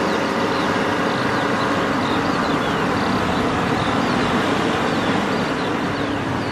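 Large Cat hydraulic mining excavator running steadily under load while it swings and dumps sand into a haul truck: a continuous diesel engine and machinery drone. Small high chirps sound over it throughout.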